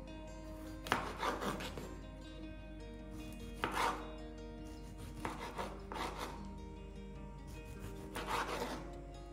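A knife slicing through a ripe tomato onto a bamboo cutting board: about five separate cuts, a second or two apart, each a short rasping stroke. Soft background music plays underneath.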